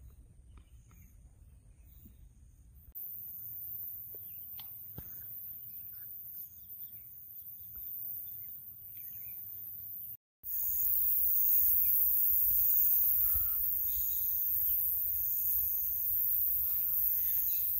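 Open-air ambience: scattered bird chirps over a steady high hiss and a low rumble. The sound drops out briefly about ten seconds in, then comes back louder.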